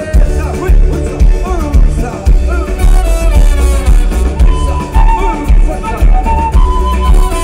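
A live band playing a Latin-tinged song with a steady beat, trombone and trumpet playing the horn line over guitar and drums.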